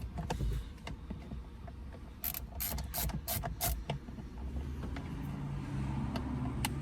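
Hand tools and steering-column parts being worked, giving a quick run of sharp metallic clicks around the middle, then a low steady hum near the end.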